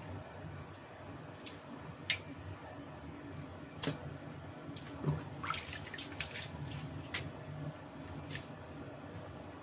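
Small wet clicks and squishes of raw shrimp being peeled by hand, the shells and heads snapping off, with a quick run of clicks a little past halfway. A faint low hum runs underneath.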